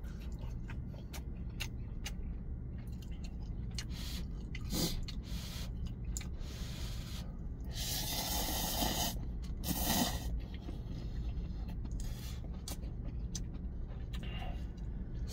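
A person eating cup noodles: slurping noodles and broth from the cup of Nagasaki champon, loudest about eight and ten seconds in, with small chewing clicks in between. A steady low hum runs underneath.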